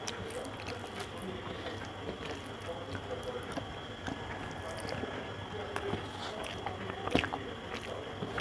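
Eating rice by hand: fingers mixing rice with spinach ghonto on a metal plate and chewing, with soft squishing and many small clicks, one sharper click about seven seconds in.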